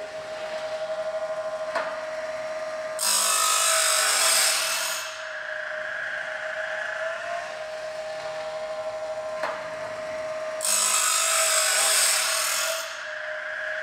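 Woodland Mills 12 V automatic bandsaw blade sharpener running, its motor humming at a steady pitch. Twice, about three and eleven seconds in, the grinding wheel grinds a tooth of the band blade with a harsh hiss lasting about two seconds. A sharp click comes shortly before each grind.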